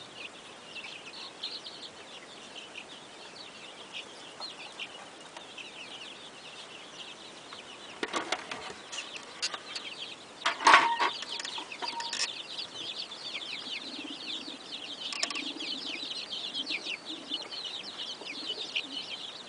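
A flock of chickens: constant high peeping from many birds, a loud flurry of wing-flapping and scuffling about halfway through, and low clucking in the second half.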